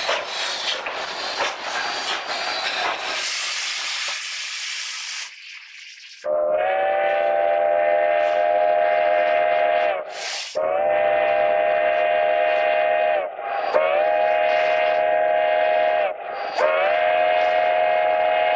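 Steam hissing loudly from the Durango & Silverton K-36 locomotive No. 480 about three seconds in, then after a short lull its chime steam whistle sounds four long blasts, each a steady chord of several notes.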